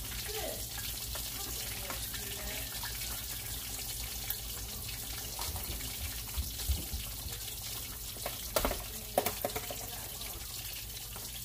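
Swai fish fillets frying in hot olive oil in a skillet, giving a steady sizzle, with a few sharp clicks or knocks about three quarters of the way in.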